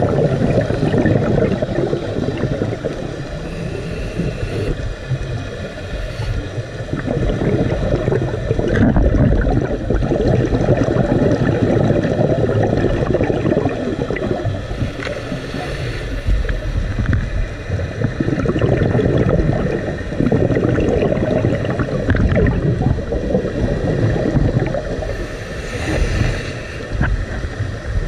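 Muffled underwater water noise picked up by a camera underwater: a continuous low rushing and gurgling that swells and eases.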